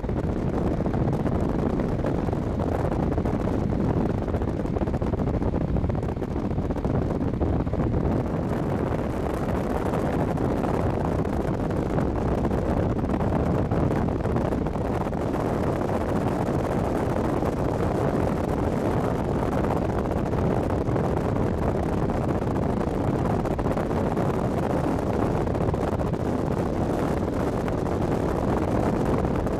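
Wind rushing in through the open window of a moving car and buffeting the microphone, over the car's road noise, steady throughout.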